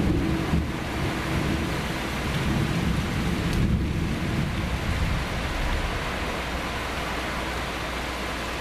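Thunder rumbling for about five seconds over steady rain, then fading away about halfway through.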